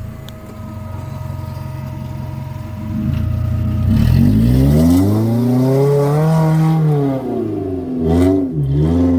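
Four-wheel-drive engine running steadily, then revved up about three seconds in, held, and eased off, with another quick blip of the throttle near the end as the vehicle drives up a muddy creek track.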